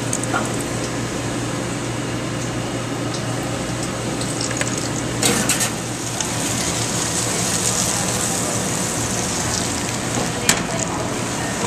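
Yellow squash fritters frying in a deep fryer, the hot oil sizzling in a steady hiss that grows stronger past the middle, with a few sharp crackles and a steady low hum underneath.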